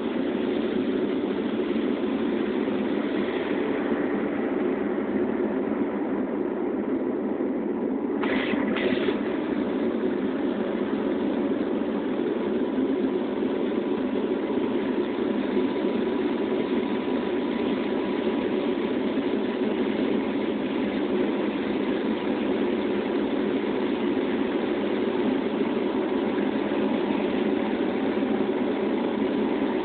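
Steady drone of a turboprop airliner's engines and propellers heard inside the cabin in flight, with a faint steady hum in it. Two short higher sounds come close together about eight seconds in.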